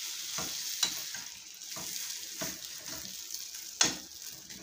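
Grated-potato pancake, just flipped, sizzling in hot oil in a frying pan, with a spatula scraping and knocking against the pan several times; the loudest knock comes near the end.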